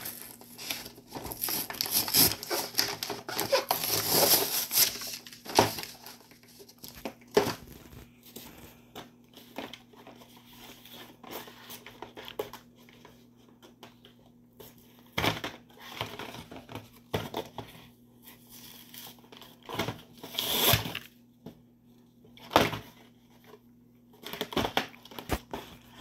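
Cardboard backing card of a toy blister pack being torn and peeled away from its plastic blister by hand, with paper tearing and plastic crinkling. Dense and continuous for the first few seconds, then scattered snaps and crackles, a few louder ones in the second half.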